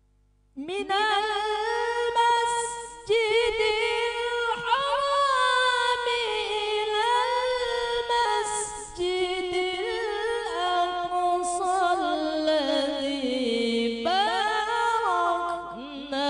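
Solo male Qur'an recitation (tilawah) in a melodic, ornamented style, unaccompanied, with long held, wavering notes broken by short breaths. It begins about half a second in, and the melody sinks lower over the last few seconds.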